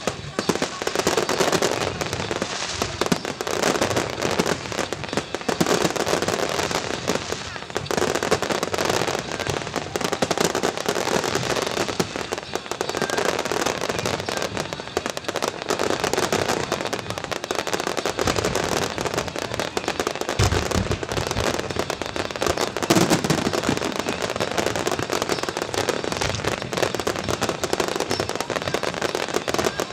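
Fireworks display: a dense, continuous run of bangs and crackling, with deeper booms about two-thirds of the way through.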